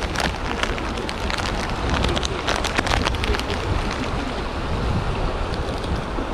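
River water rushing over shallow riffles and rocks, a steady wash, with wind buffeting the microphone as a low rumble. Scattered small clicks and splashes run through the first half.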